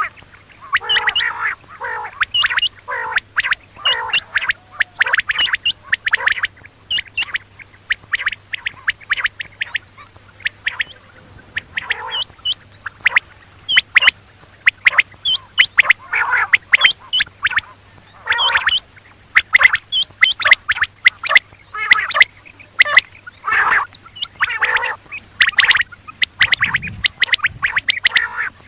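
Quail calling: a dense, continuous run of short, harsh, repeated call notes, many overlapping, with sharp clicky notes mixed in.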